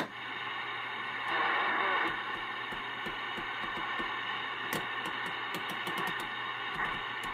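Cobra 142 GTL CB base station receiving through its speaker: thin, band-limited static with faint, garbled single-sideband voices, getting louder for a moment about a second in. A sharp click at the very start.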